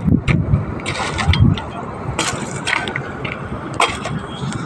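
Gusty wind rumbling on the phone's microphone over a steady hiss of open-air background noise, with scattered sharp clicks and knocks.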